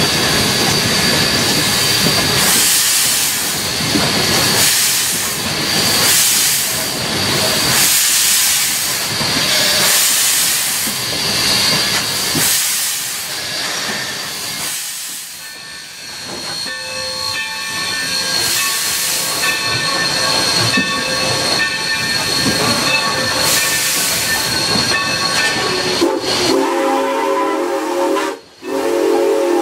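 Mikado (2-8-2) steam locomotive working along with its exhaust chuffing at a slow, even beat, about one chuff a second, over steady steam hiss. The beat fades about halfway, and near the end the locomotive's steam whistle blows in two blasts.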